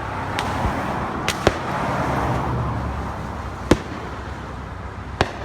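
Fireworks display: firework shells bursting with sharp bangs, five in all, two of them close together about a second and a half in and the last near the end. A steady rushing background swells in between.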